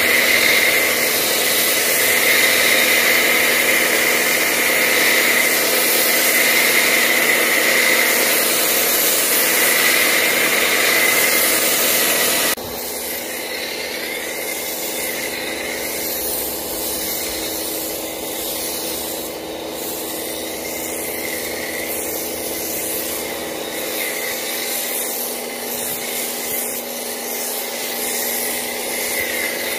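Car-washing sounds on a car's bodywork: a loud, steady spray, then after a sudden drop in level about twelve seconds in, quieter spraying with rubbing.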